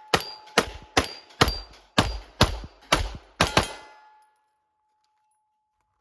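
Pistol firing a string of about nine shots roughly half a second apart in a timed drill on steel poppers, stopping about four seconds in.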